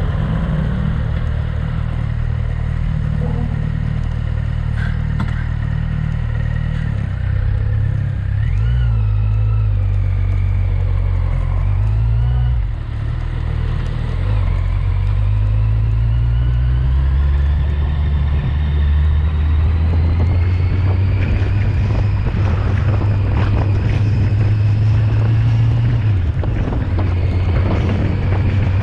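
Kawasaki Z750 motorcycle engine running under way, with a heavy wind rumble on the microphone. The engine note dips briefly about twelve seconds in, then climbs slowly for over ten seconds before falling back near the end.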